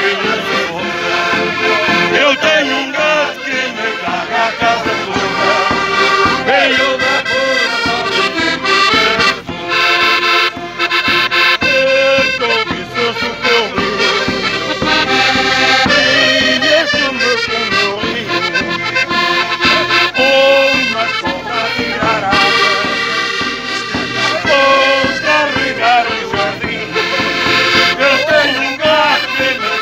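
Several diatonic button accordions playing a lively traditional folk tune together, with a bass drum struck with a felt mallet keeping a steady beat.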